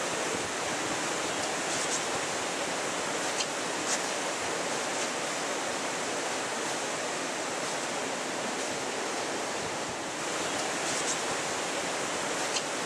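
Steady rushing of water, an even hiss, with a few faint clicks.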